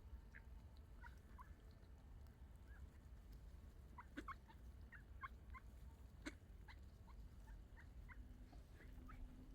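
Faint, short bird calls scattered throughout, coming thicker around the middle, over a low steady rumble.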